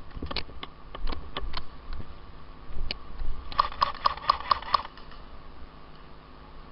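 Airsoft gun shots: a scattering of sharp clicks, then an even string of about six quick shots, roughly five a second, a little past the middle.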